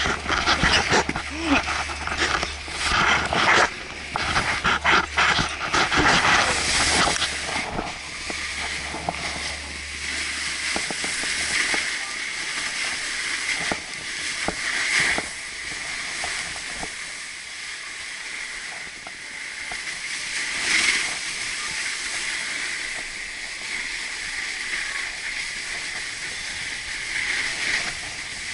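Snowboard sliding and carving down a snow slope: a steady hiss of the board on the snow, mixed with wind on the microphone, swelling at times. For the first several seconds there is loud irregular rustling and knocking.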